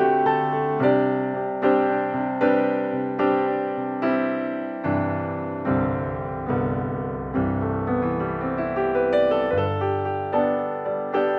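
Background piano music: a slow, gentle piece with a new note or chord struck about every second, each fading as it rings.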